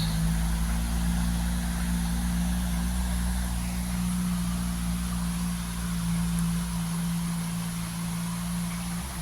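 An engine running steadily with a low, even hum that dips briefly near the end, over a steady hiss.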